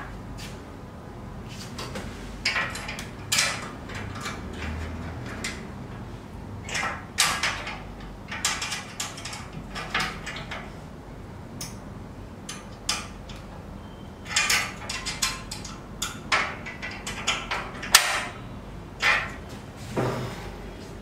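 Hands working on a CNC router's steel leg frame: scattered short clicks, scrapes and rattles of metal parts and hardware being handled and fitted, some coming in quick clusters.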